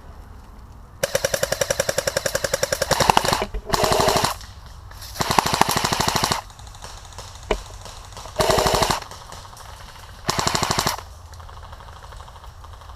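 Airsoft rifle firing full-auto: five bursts of rapid clicks, the first and longest about two seconds, the others under a second, with one lone sharp snap between them.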